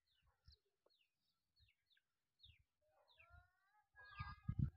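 Faint birds chirping: a string of short, high, falling chirps about every half second, then a longer call about three seconds in. Low rumbling thuds come in near the end.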